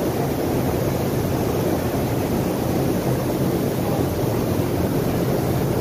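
Steady background din of a large, crowded exhibition hall, with no single sound standing out.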